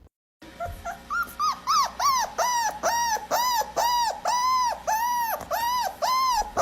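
A dog whining in a long, even string of short cries, each rising then falling in pitch, about three a second.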